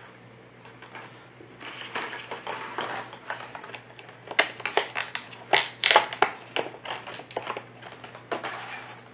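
Stainless steel ratchet antenna mount being handled: a rustling noise, then a quick irregular run of sharp clicks and knocks.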